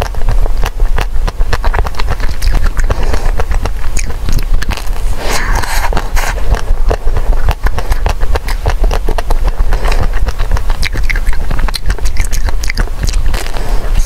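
Crunching and chewing of a green-coated ice cream bar with a crumb-studded shell, a dense run of crackles and mouth clicks, over a steady low hum.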